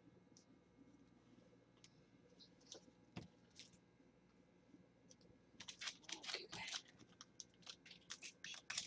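Trading cards being handled and flipped by hand: a few faint ticks at first, then, a little past halfway, a quick run of clicking and rustling as the cards slide against each other.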